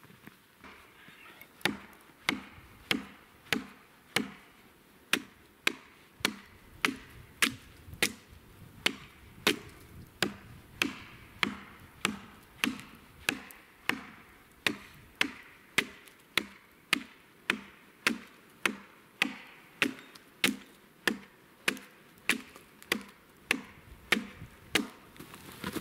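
Axe chopping into a dry dead log, cutting chips for kindling: sharp, evenly paced strokes, about three every two seconds, starting a little under two seconds in.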